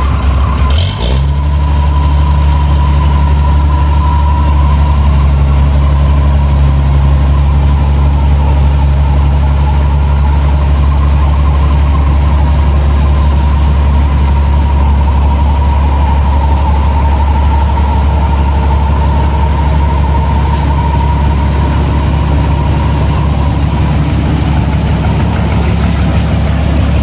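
Rice combine harvester's diesel engine running steadily and loudly at working speed, with a steady higher whine from the machine over the low engine drone. About a second in there is a brief dip and a click, and then it carries on unchanged.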